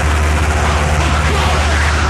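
Power electronics noise track: a dense, unbroken wall of harsh noise over a loud, steady low hum, with no rhythm or breaks.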